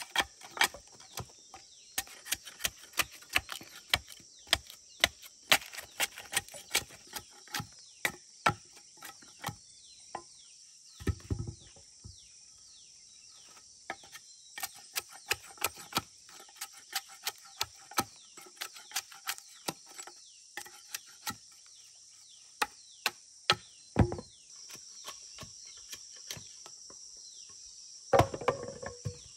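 Machete chopping a wooden post: sharp knocks of the blade biting the wood, about two a second, with a few heavier thuds. Insects buzz steadily behind.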